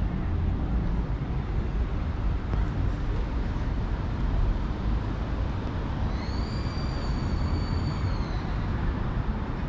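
City street traffic: cars driving along a multi-lane road, a steady low rumble. About six seconds in, a thin high squeal rises in for about two seconds, then fades.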